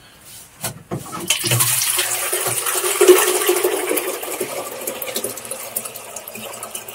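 Water rushing out and splashing, starting about a second and a half in, strongest around three seconds, then tapering off. The water is foamy and full of air.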